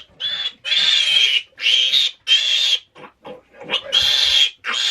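Piglet squealing while it is being handled: a run of about six loud, shrill squeals, each about half a second long, with short breaks between them.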